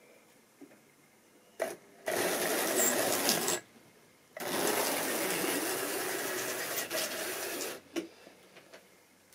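Tri-ang OO-gauge model diesel locomotive running along the track, its small motor and wheels making a dense whirring rattle. It comes in two stretches, about a second and a half and then about three seconds, with a short break between. A sharp click comes before and after.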